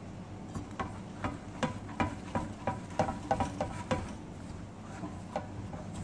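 Spatula stirring a crumbly cornmeal dough in a stainless steel mixing bowl: a rhythm of scrapes and knocks against the bowl, about three a second, that eases off after about four seconds.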